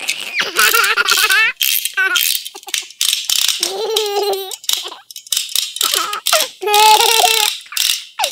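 Wind-up chattering teeth toy clattering in bursts, its plastic jaws rattling, mixed with high, wavering voice-like squeals.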